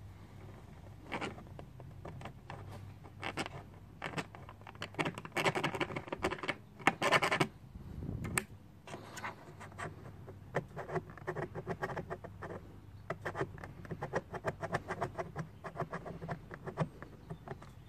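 Plastic razor blade scraping dried super glue residue off a plastic case, plastic on plastic, in runs of quick short strokes with brief pauses.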